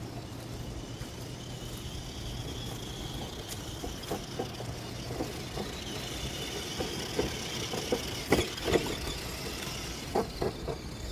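Tamiya Konghead 6x6 radio-controlled truck running, its electric motor and gears giving a high steady whine over a noisy rumble. Scattered sharp knocks and clatters sound through it, the loudest about eight seconds in.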